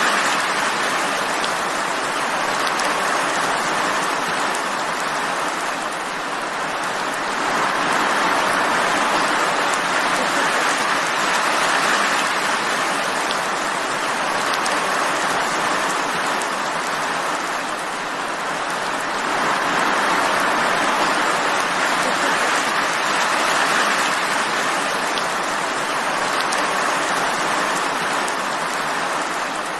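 Steady rain falling, a dense even hiss that slowly swells and eases every several seconds.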